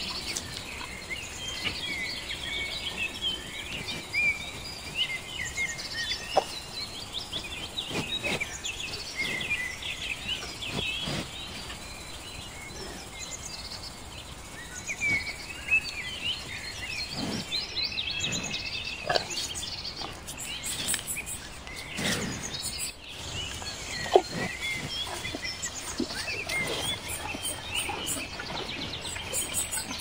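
Outdoor ambience of many birds calling in a continuous chorus over a steady background hiss, with scattered short knocks and clicks.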